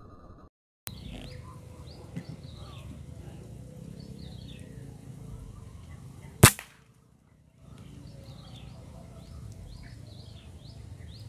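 A single sharp shot from a Bocap Predator PCP air rifle about six and a half seconds in, with birds chirping throughout.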